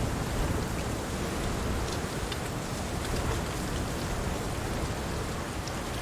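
Steady rain and wind: a constant hiss over a fluttering low rumble, with a few faint ticks of drops.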